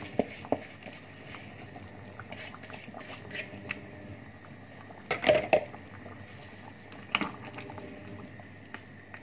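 Meat broth simmering in a stainless steel pot, with a few sharp knocks and clatters of utensils against the pot: a couple near the start, a loud cluster about five seconds in and another about seven seconds in, as a wooden spoon works rice into the broth.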